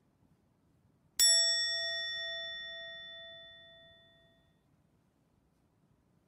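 A single bell struck once about a second in, ringing out and fading over about three seconds, its lowest tone pulsing as it dies away.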